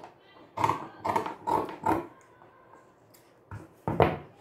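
Fabric shears snipping through cotton cloth on a cutting table, four cuts in quick succession about every half second, then a pause and a couple more sharp snips or knocks near the end, the last the loudest.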